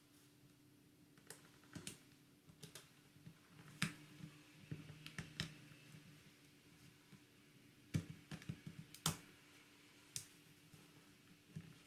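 Irregular small clicks and taps of hand tools working on the plastic and metal parts of a ZTE Nubia V5 smartphone being taken apart, with a few sharper clicks a little under four seconds in and around eight and nine seconds in. A faint steady hum sits underneath.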